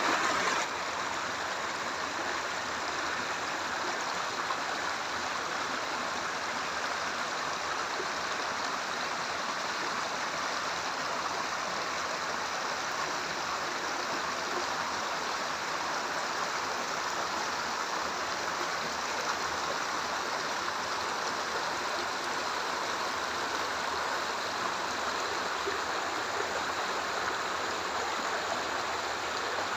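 Mountain stream rushing, a steady, unbroken noise of fast-flowing water.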